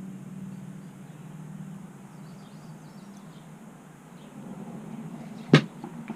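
Small parts of an RC sway bar kit being handled: one sharp click about five and a half seconds in, followed by two fainter taps, over a steady low hum.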